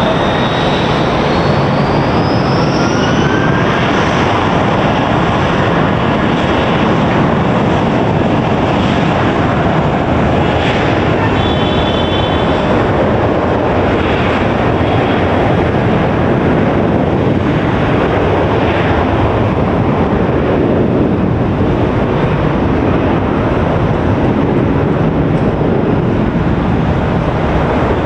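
Jet airliner engines running loud and steady. A high whine climbs in pitch over the first few seconds.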